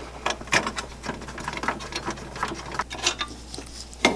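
Ratchet wrench clicking in short, irregular runs as the nuts holding a Mustang's stock shock-tower brace are backed off, with a louder metallic click near the end.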